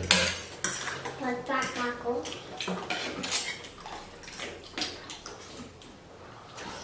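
Cutlery clinking against bowls during a meal of noodle soup, in scattered sharp clicks.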